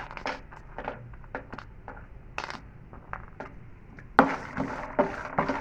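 Almonds frying in a little oil in a pan on low heat and being stirred, with irregular clicks and crackles. About four seconds in they turn suddenly louder and busier.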